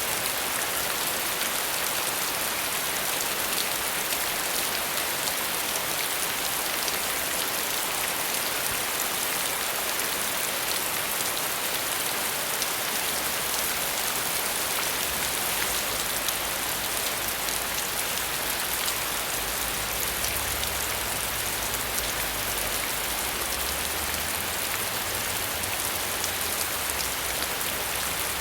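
Steady rain falling, an even hiss with a fine patter of drops. A faint low rumble sits under it in the second half.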